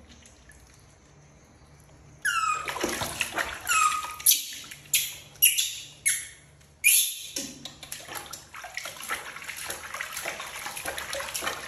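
Baby macaque giving a string of sharp, high-pitched squeals, each falling in pitch, starting about two seconds in. After that, water splashes and sloshes in a plastic tub as the baby is bathed.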